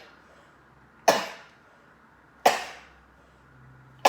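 A person sneezing in a fit: two sharp sneezes about a second and a half apart, with a third starting right at the end.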